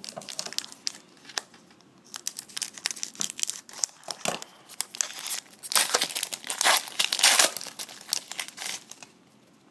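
Foil trading-card pack wrapper crinkling as it is handled and torn open, a dense crackle that is loudest about two-thirds of the way through and dies down near the end.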